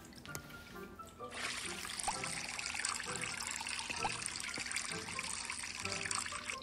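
A liquid-pouring sound effect, a steady rush of water streaming into a glass, starting about a second in and running on, over light background music.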